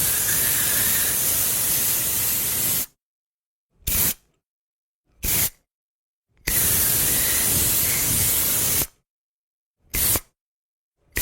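Aerosol spray can hissing in a sequence of sprays: a long spray of about three seconds, two short bursts, a second long spray of about two and a half seconds, then another short burst, each cut off sharply into silence.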